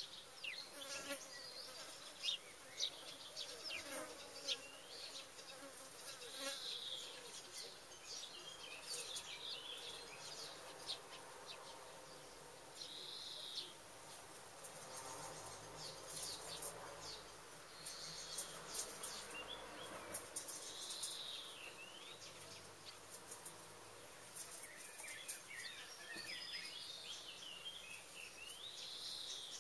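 Insects buzzing close to the microphone, the hum wavering in and out. Small birds chirp now and then in the background, with a short warbling phrase near the end.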